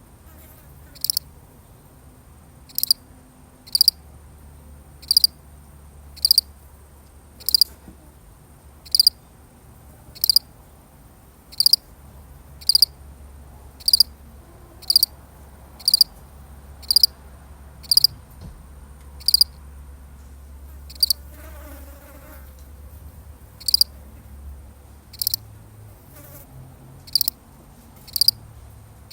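A single field cricket chirping, one short high chirp about every second, with a pause of a couple of seconds about two-thirds of the way through.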